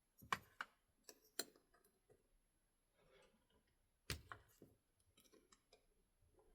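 Scattered sharp metallic clicks and small taps as pliers work a C-clip off the back of an ASSA RUKO 500 lock cylinder, the loudest clicks in the first second and a half and about four seconds in.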